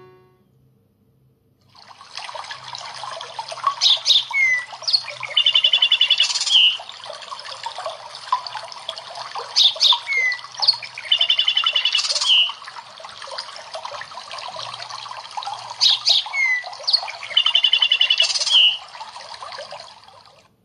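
A nature-sound ringtone on the OnePlus 10 Pro: birdsong over the steady rush of water, beginning about two seconds in. The same bird phrase of chirps and a short trill repeats three times, about six seconds apart.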